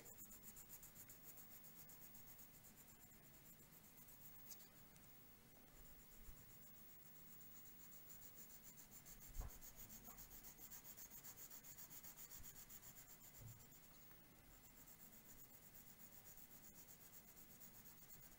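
Faint scratching of a brown colored pencil shading on paper in quick, even strokes, with a soft knock about halfway through.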